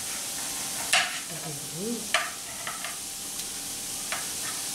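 Squid tentacles sizzling on a tabletop electric grill, a steady hiss, with a few sharp clicks of metal utensils and chopsticks against the grill and plates.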